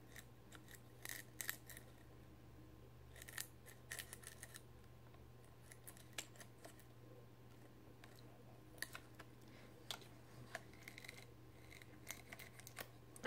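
Faint scattered small clicks and light handling noises of fingers working at a resin ball-jointed doll's white stringing elastic, over a quiet room with a low steady hum.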